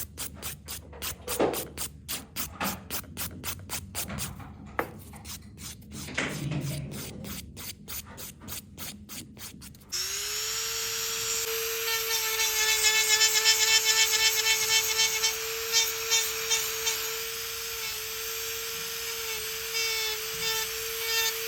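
Quick, even rasping strokes of a hand nail file on a nail, about three or four a second. About ten seconds in, an electric nail drill starts, spins up to a steady whine and grinds on the nail.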